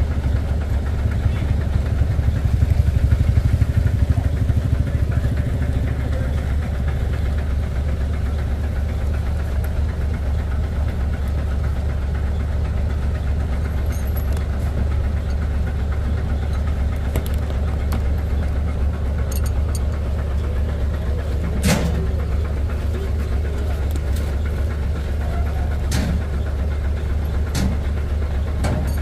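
Large diesel truck engine idling steadily, a low drone, with a few sharp knocks in the second half.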